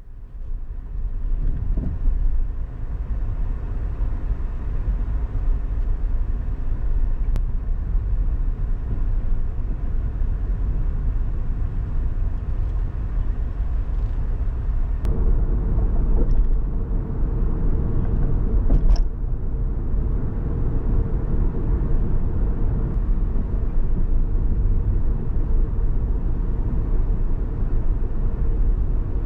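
A car driving on city streets, with a steady low rumble of road and engine noise that fades in at the start. A steady hum joins about halfway through.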